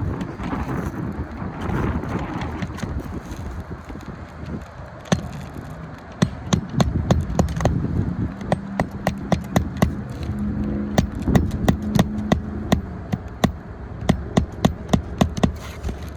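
Hammer nailing a replacement asphalt shingle onto a roof: a long series of sharp knocks, often in quick runs of about three strikes a second, starting about five seconds in.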